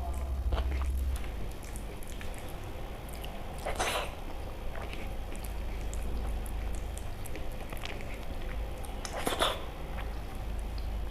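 A person eating close to the microphone: soft chewing with small wet mouth clicks, and two louder short smacking or slurping sounds, one about four seconds in and one near the end.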